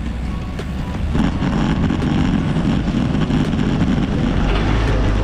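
Oncoming coach bus passing close by: a deep engine rumble with road noise that gets louder about a second in and stays loud as the bus draws alongside.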